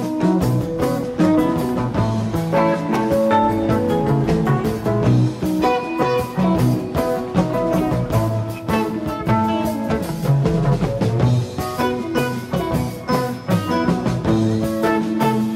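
Guitar-led rock music with a drum kit, playing steadily.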